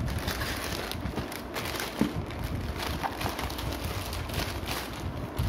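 Plastic courier mailer bag crinkling and rustling as hands open it and pull out the wrapped box inside, with irregular crackles throughout.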